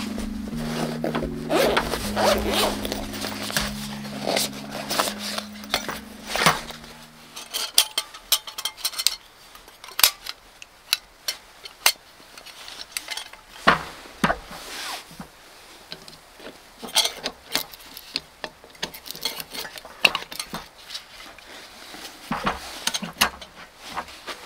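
Irregular clicks, clinks and rustling of camping cookware, utensils and gear being handled by hand.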